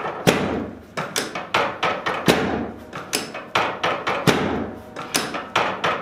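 Rapid series of sharp knocks, about three a second, from a chiropractic table knocking under repeated hand thrusts to the sacrum and low back.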